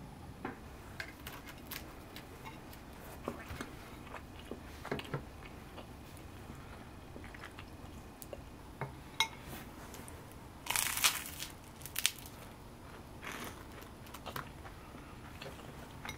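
Scattered small clicks, taps and crunchy rustles, as of food, dishes or packaging being handled, with a brief louder crinkly rustle about eleven seconds in.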